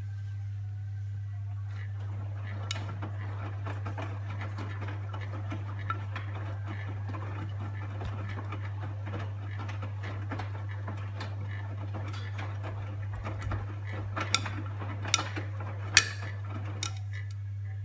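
Handling noise of hands-on work: a steady scraping and rustling with scattered small clicks, and a few sharper, louder clinks near the end.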